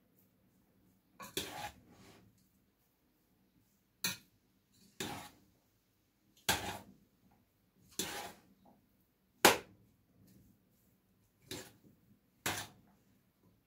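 A spoon stirring and mixing food in a dish, heard as a short scraping stroke or knock about every second and a half, with the sharpest knock about two-thirds of the way through.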